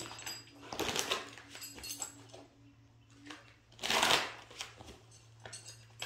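Oracle cards rustling as they are handled and shuffled, in two short bursts about a second and about four seconds in, over a faint steady background tone.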